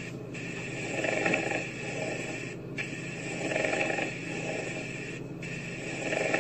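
Pleural friction rub on a lung auscultation recording: a rough rubbing sound, likened to roof tiles grating against each other, that swells with each breath about every two and a half seconds. It comes from the two inflamed pleural layers rubbing together, as typically heard in pleurisy.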